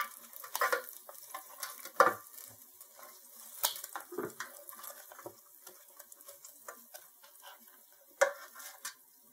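Kitchen tongs with silicone tips turning chicken wings in a hot air fryer basket: scattered clicks and knocks of the tongs against the wings and the basket, the sharpest about 2 seconds in and near the end, over the faint sizzle of the cooking wings.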